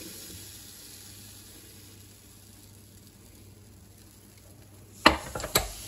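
Waffle batter sizzling faintly on the hot plate of a Waring rotating waffle maker. About five seconds in come two sharp clunks, half a second apart, as the lid is brought down and the iron is handled.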